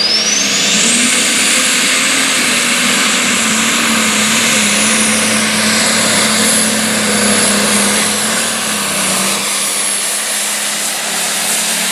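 Turbocharged diesel of a Case IH pulling tractor running flat out under load down the track. The turbo's whistle climbs steeply in the first second, then holds a steady high pitch over the loud engine noise and fades near the end.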